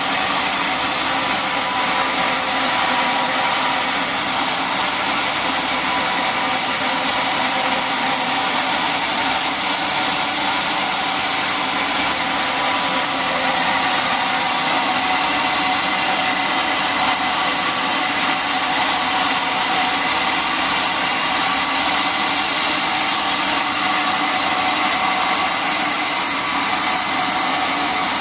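Sawmill machinery running steadily: a loud, continuous mechanical drone with several steady tones and no breaks or changes.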